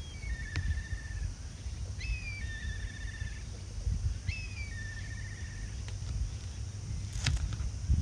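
A songbird repeating a short song three times, about two seconds apart: a high falling note followed by a lower trill. Wind rumbles on the microphone underneath, and there is a sharp click near the end.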